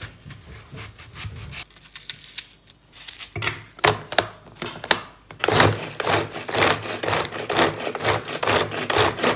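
Manual vegetable chopper being worked over and over, its spinning blades chopping vegetables with quick rasping strokes. The strokes start a few seconds in and come fast and steadily through the second half.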